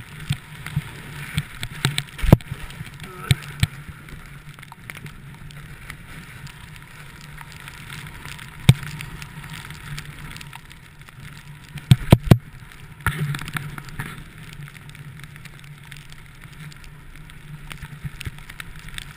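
Skis sliding and scraping over snow, heard through a GoPro worn by the skier, with a steady low rumble and a few sharp knocks; the loudest knocks come in a quick cluster about twelve seconds in.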